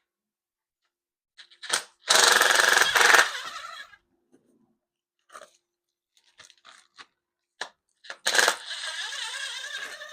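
Metal clattering from tools and engine parts. A loud rattling burst about two seconds in lasts about a second and a half, sharp clicks and knocks follow, and a second clattering burst near the end leaves metal ringing.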